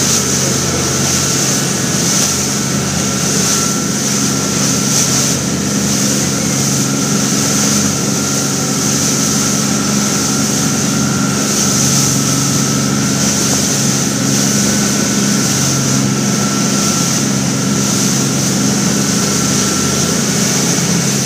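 Motorboat under way at speed: its engine drones steadily while water rushes and hisses along the hull.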